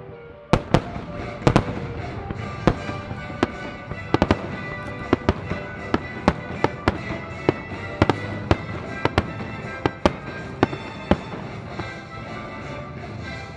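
Fireworks bursting in quick, irregular succession, about two bangs a second, over background music. The bangs stop about eleven seconds in, leaving the music.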